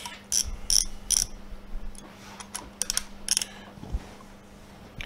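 Hex key turning the spring-loaded idler tension screws on a Prusa i3 MK3 extruder, making a run of short, high, scratchy squeaks in two spells as the screws are tightened to set the idler tension.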